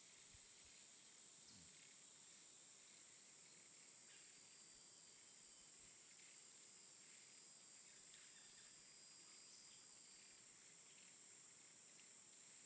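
Near silence: faint outdoor ambience with a steady high-pitched insect drone.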